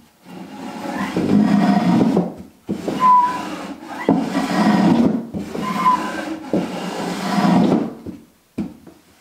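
Close-fitting wooden drawer slid in and out of its wooden cabinet carcass about four times, wood rubbing on wood. The fit is so tight that the air pushed out of and drawn into the carcass whistles briefly on the strokes.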